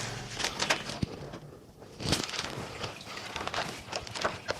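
Handling noise from the plastic parts of a canister filter: a run of light clicks and rattles, with a sharp knock about a second in and a heavier thump about two seconds in.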